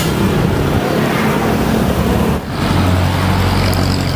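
Busy city street traffic: a dense wash of passing vehicle and engine noise. About two and a half seconds in it dips briefly, and a steady low engine hum takes over.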